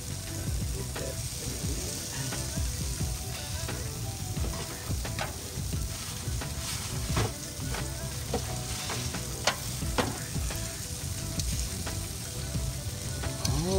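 Shrimp and chicken-and-vegetable kabobs sizzling on a hot grill top, a steady frying hiss with a few sharp pops or clicks scattered through it.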